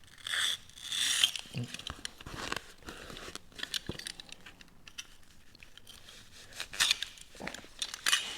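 Adhesive Velcro strip being cut to size and handled: irregular bursts of snipping, rasping and crinkling, loudest in the first second or so and again near the end.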